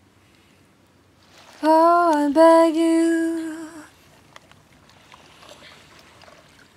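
A woman's voice singing one long wordless note with a slight waver. It starts about a second and a half in, dips briefly in pitch, then holds for about two seconds before fading; faint background noise fills the rest.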